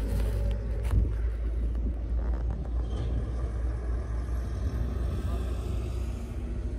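A low, steady rumble of a vehicle engine running, with a brief knock about a second in.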